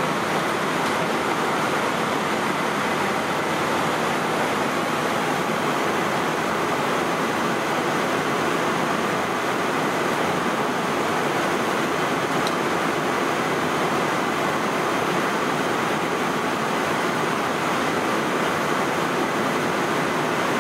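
Steady, even rushing noise of a Boeing 787-9 flight deck in flight, the constant background of air flowing past the cockpit.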